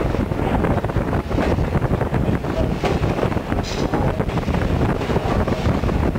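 Wind buffeting the microphone at the open front of a moving train, over the steady low rumble of the train running along the track. A short high squeal about halfway through.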